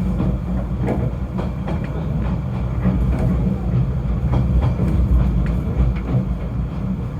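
Snowdon mountain railway train running: a steady low rumble with scattered clicks and rattles.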